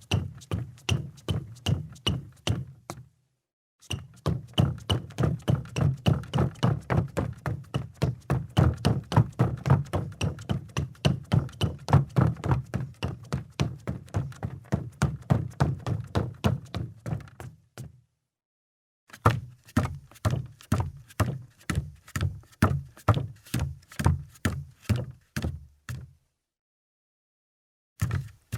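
Footsteps on a wooden floor: a steady run of dull, thudding steps, broken twice by a second or two of dead silence.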